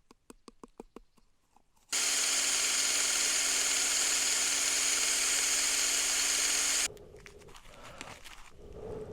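A run of quick clicks, then a cordless power drill spinning a dry stick against wood for about five seconds, a steady whirring that starts and stops abruptly. The drill is making friction heat to light a fire.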